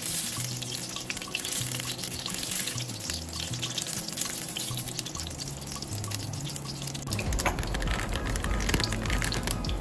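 Background music with a stepping bass line over sausages sizzling and crackling in oil in a wok. About seven seconds in, a plastic bread bag crinkles as it is handled.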